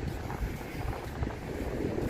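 Wind buffeting the microphone, a continuous rough, low rumble that rises and falls.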